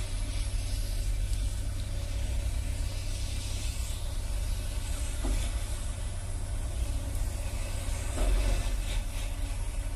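Heavy equipment engine running steadily with a low rumble, with a couple of brief louder moments about five and eight seconds in.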